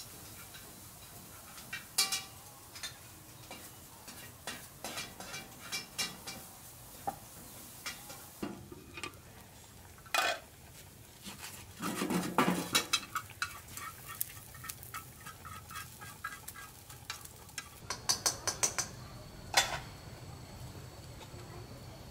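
Irregular clinks and knocks of hard objects being handled, several with a short ringing tone, with a denser clatter and scrape about halfway through.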